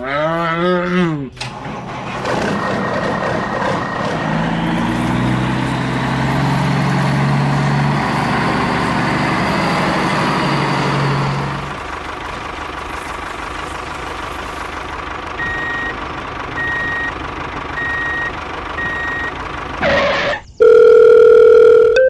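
A brief wavering, voice-like grumble, then a tractor engine running steadily for about ten seconds. Four evenly spaced reversing beeps follow, and near the end a loud steady phone ringtone.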